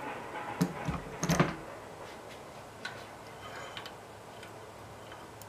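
Light metal clicks and clinks of a nut, washers and a threaded rod being handled and worked off by hand on a rototiller's belt tension bracket, loudest about a second in, then a few fainter ticks.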